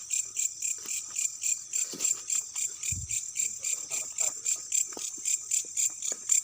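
Night insects, cricket-like, chirping in a steady rapid pulse of about four to five chirps a second. Faint rustling underneath, with a soft thump about three seconds in.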